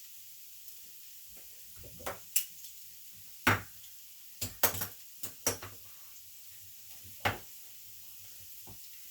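Kitchen clatter: a run of short, sharp knocks and clacks, about nine in all, bunched between about two and five and a half seconds in, with one more near seven seconds.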